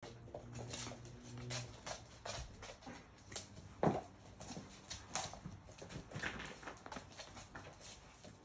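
Labrador puppies' claws clicking and pattering on a laminate floor as they walk and play, in many scattered light clicks, with one louder short noise about four seconds in.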